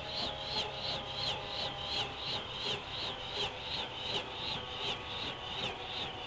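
Bell 212 helicopter's two-bladed main rotor swishing at about three beats a second, slow for this rotor, as it winds down after the engines are shut off. A fainter steady turbine whine sits beneath.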